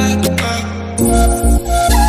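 Background music: repeated plucked notes, then about a second in a deep bass beat and a sliding melody line come in.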